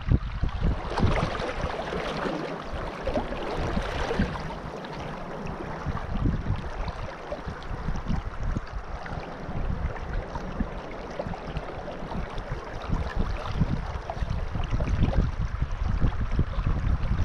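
Shallow river running and rippling over stones, with gusty wind buffeting the microphone, the gusts heaviest at the start and near the end.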